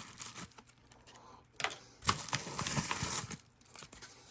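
Plastic packaging crinkling as it is handled and opened, in two bouts, with scattered light clicks of small plastic parts.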